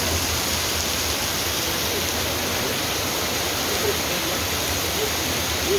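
Heavy rain pouring while muddy floodwater rushes down a street over stones: a steady rushing noise.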